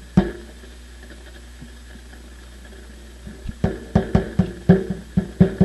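A thump as a microphone is set down, then a low steady hum, then from about three and a half seconds in a fast run of knocks, about four a second, each with a short low ring, from handling.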